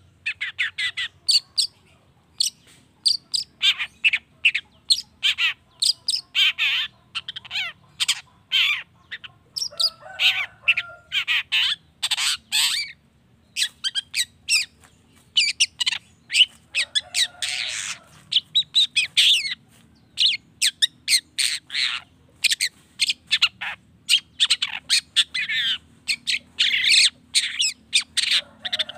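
Long-tailed shrike (cendet) singing a fast, varied chatter of short, sharp notes with brief gaps, broken by a few lower, harsh squawks.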